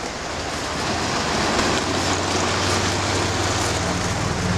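Model railway goods train running fast past on the layout, its wheels rattling and rumbling on the track, with a low steady hum that comes in about a second in and grows stronger near the end.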